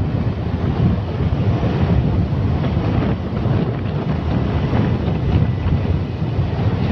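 Wind rushing and buffeting over the microphone while moving along a road, a steady low rumble with no clear engine note.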